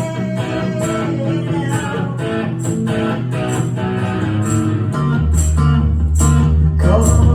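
Live rock band music in an instrumental passage: guitar strumming chords over a steady beat with evenly spaced high cymbal ticks, and a heavy bass line that enters about five seconds in.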